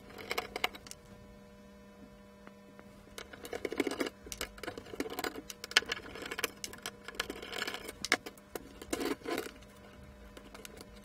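Scattered small clicks, scrapes and rattles of hand work on an electronic device: a screwdriver undoing the screws of a circuit board, then the board being lifted off its metal frame.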